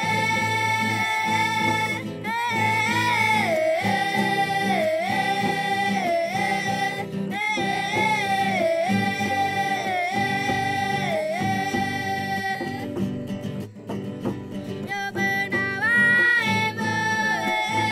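A song sung to an acoustic guitar: long held notes that dip and rise again, over steady strumming. The singing breaks off for about two seconds near the end, then resumes.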